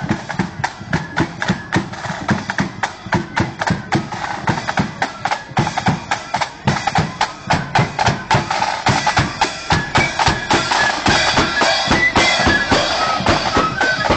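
Marching flute band: side drums and bass drum keep a rapid, steady beat while flutes play a tune, the flutes growing louder in the second half.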